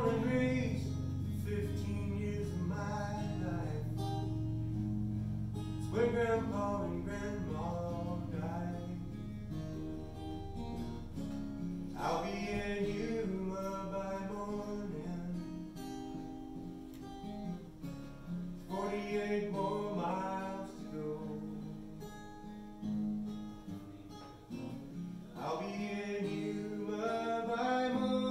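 Acoustic guitar played live and strummed steadily, with a man's voice singing in phrases that come every six seconds or so.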